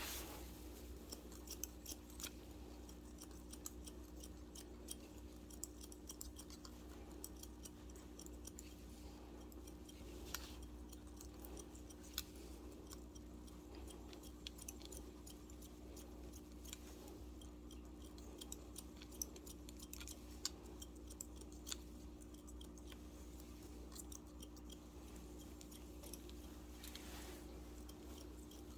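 Barber's long haircutting scissors snipping hair in short, irregular clicks over a steady low hum.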